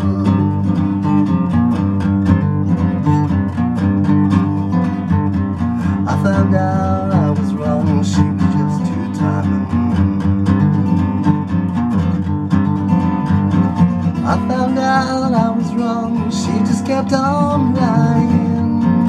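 Steel-string acoustic guitar strummed in a steady rhythm, with a man singing over it in stretches, around six seconds in and again from about fourteen seconds.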